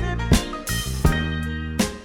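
Soul-style music with guitar, bass and a regular drum beat.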